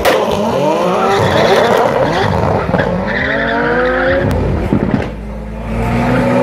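Two cars launching from a drag-racing start line, engines revving hard and climbing in pitch through several gear changes, with tyre squeal. The sound dips about five seconds in, then another engine tone rises steadily.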